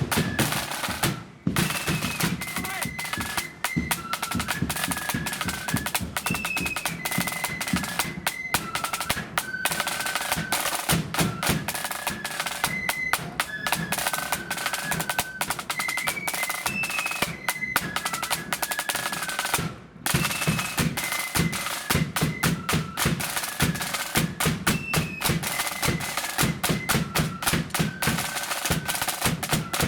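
A blood-and-thunder marching flute band playing a tune: flutes carry a high melody over fast snare drum rolls and heavy bass drum beats. The sound cuts out for a moment about a second in and again about twenty seconds in.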